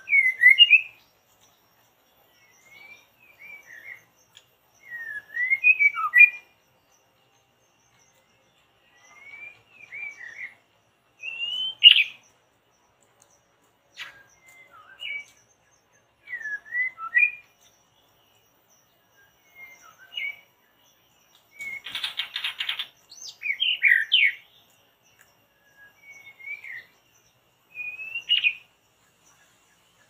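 Murai, a Copsychus songbird, singing short whistled phrases with quick rising and falling glides every second or two, with a harsh scratchy call about two-thirds of the way through.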